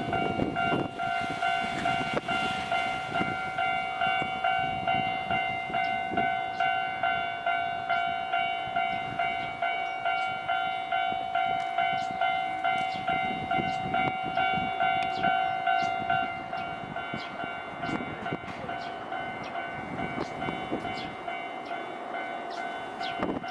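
Japanese railway level-crossing warning bell ringing in an even, rapid repeated rhythm. A train passes over the crossing with clicking wheels and rumble.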